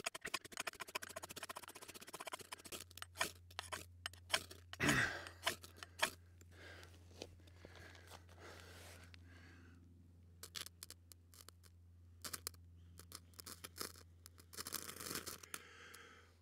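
A knife blade scrapes down a ferro rod (flint striker) in rapid strokes to shower sparks onto wood shavings, with a few more scattered strikes later. Near the end there are short breaths blown onto the tinder to coax it alight.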